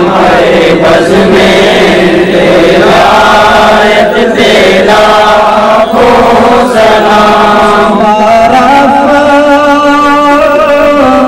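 Men's voices chanting an Urdu devotional salam, led by a singer on a microphone, with long held notes gliding from one pitch to the next.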